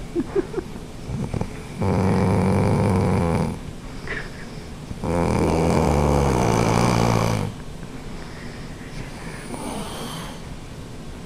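A woman snoring loudly in her sleep: two long snores, the second longer than the first, with a quieter breath near the end.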